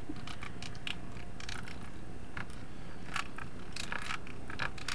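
Computer keyboard typing: quick, irregular key clicks over a steady low background hum.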